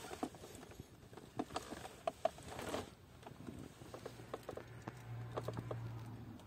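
Puppy's mouth making small scattered clicks and smacks as it licks and chews at food crumbs, with a low steady hum coming in about four seconds in.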